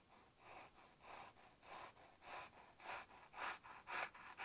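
Kitchen knife sawing back and forth through sheet material: faint, even strokes, about eight of them, a little under two a second.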